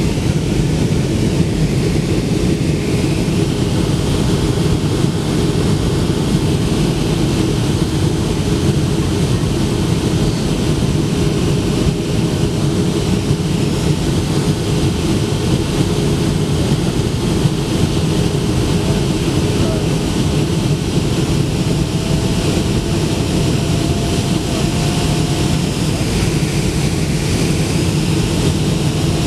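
Steady roar of a Boeing 757's jet engines and rushing air, heard from a window seat in the cabin during the descent to land, with a steady low hum under it.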